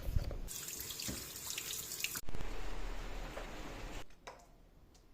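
Water running from a tap into a sink, with a sudden break about two seconds in, then running on and stopping about four seconds in.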